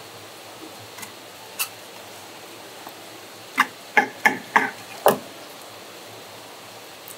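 Sharp knocks, a few lone ones and then a quick run of five close together about three and a half to five seconds in, over a steady hiss.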